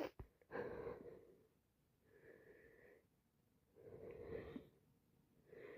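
A person with a cold breathing faintly and wheezily, four breaths about a second and a half apart, with a short click at the start.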